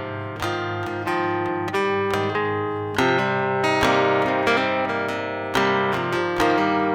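Instrumental music intro: acoustic guitar picking and strumming chords over a steady bass line, with a new chord or note struck every half second or so.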